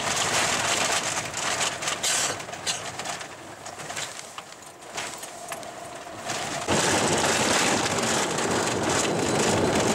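Car driving on a gravel road, heard from inside the cabin: steady tyre and road noise with many small clicks and rattles. It drops back for a couple of seconds, then jumps abruptly to a louder, steadier noise about two-thirds of the way through.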